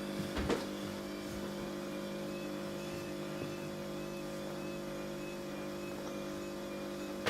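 Steady electrical hum made of several fixed tones, with a few light clicks and knocks in the first second.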